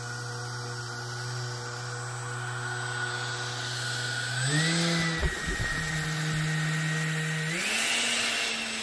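Electric ducted fans of an RC hovercraft running with a steady whine, throttled up in two steps: pitch jumps higher about four and a half seconds in and again near the end. Low rumbling of airflow on the microphone just after the first step.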